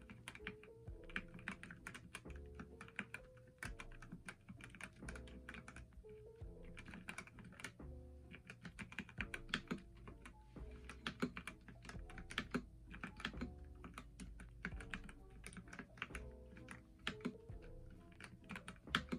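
Typing on a Dustsilver K61 61-key mechanical keyboard with red linear switches: a steady, fast stream of keystroke clacks. Background music plays underneath.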